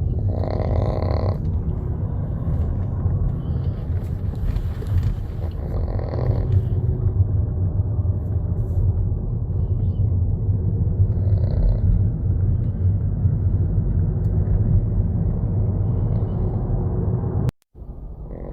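A small dog snoring in its sleep: short snores about a second long, spaced roughly five to six seconds apart, over a steady low rumble. The sound cuts out briefly near the end.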